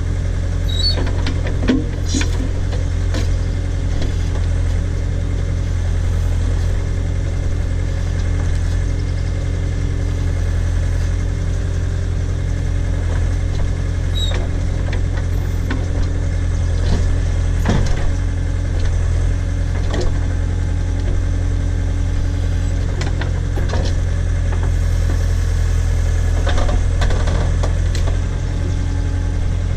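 Case/Davis D100 backhoe engine running steadily under the operator while it works a tree stump out of the ground, with a few scattered knocks.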